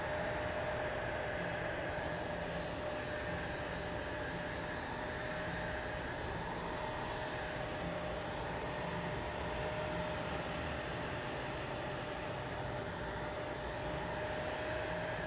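Hot-air blower running steadily, a constant rush of air with a steady whine, heating a phone's glued back cover to soften the adhesive.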